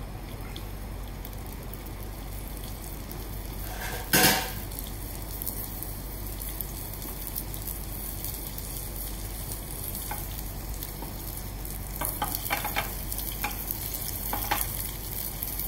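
A bonito fillet crusted in black sesame seeds sizzling as it sears in hot sesame oil in a frying pan over a high gas flame. One sudden loud burst about four seconds in, and a few sharper crackles near the end.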